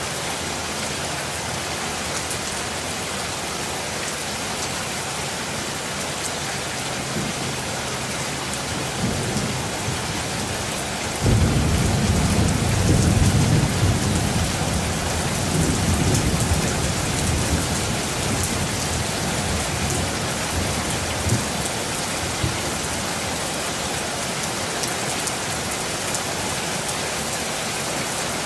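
Steady rain falling, with thunder breaking suddenly about eleven seconds in: a low rumble that is loudest for a few seconds, then dies away over about ten seconds.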